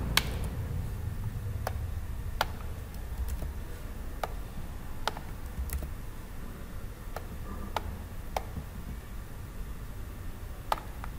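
Computer mouse clicking now and then: about ten sharp single clicks at uneven intervals, over a low steady background hum.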